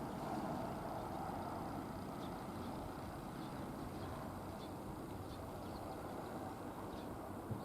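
Steady outdoor background rumble, with a few faint, short high chirps scattered through it.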